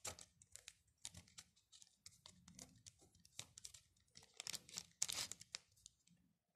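Fingertips rubbing the wet paper backing off a printed paper label, a run of faint scratchy rubbing and tearing strokes as the paper fibres roll away, busiest about four to five seconds in.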